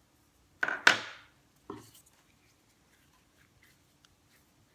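Small tools or cutters knocked and set down on a table: two sharp clatters about a second in, a softer knock just after, then a few faint ticks.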